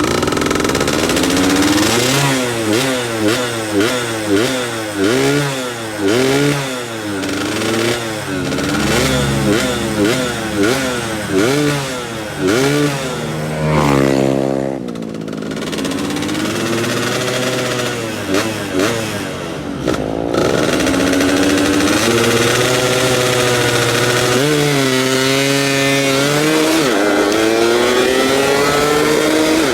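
Yamaha F1ZR two-stroke moped engine being blipped on light throttle: quick rev-and-drop arches about once a second, a longer rev and fall near the middle, then slower, gentler rises and falls in engine speed.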